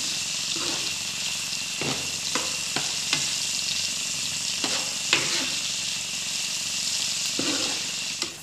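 Pork, green chilies and sliced shallots sizzling in oil in a frying pan, with a steady hiss. A utensil stirs them, knocking and scraping against the pan about ten times.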